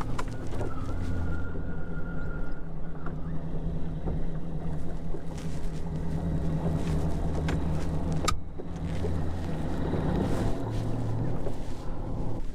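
A fishing boat's outboard motor running steadily with the boat under way, over a haze of wind and water noise, with a single sharp click about eight seconds in.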